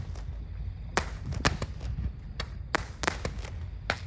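A string of about a dozen irregular sharp taps and clicks over a low steady rumble.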